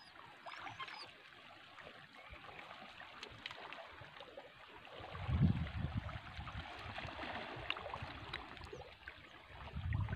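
Shallow seawater lapping and trickling around rocks, with small splashes from wading. From about five seconds in, low rumbling buffets the microphone and becomes the loudest sound.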